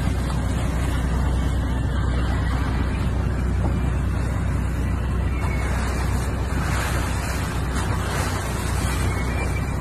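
Boat under way at sea: a steady low engine rumble under the rush of water along the hull and wind on the microphone. The hiss of water swells about six seconds in and eases off near the end.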